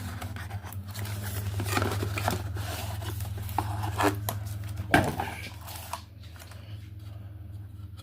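A cardboard box and its packaging being opened and handled: rustling, scraping and tearing, with a sharp knock about five seconds in. It quietens for the last couple of seconds, over a steady low hum.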